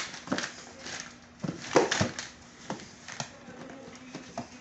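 Gift-wrapping paper tearing and crinkling, with knocks and scrapes of a cardboard fan box being handled: a run of irregular crackles and short knocks, loudest about two seconds in.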